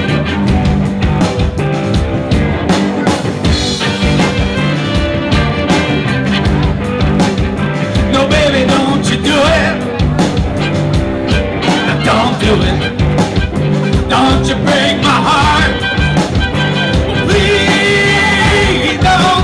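Band music in a rock style with a steady beat, and a singing voice that stands out from about eight seconds in.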